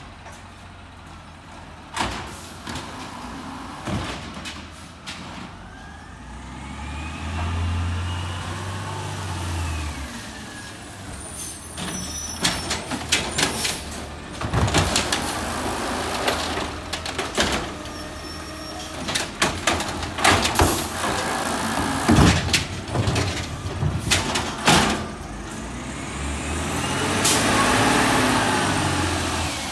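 Automated side-loader garbage truck working at the curb: its diesel engine revs up twice, once about a quarter of the way in and again near the end, to power the hydraulic lifting arm. In between comes a long run of clanks and bangs as the arm grips, lifts and shakes wheeled bins into the hopper.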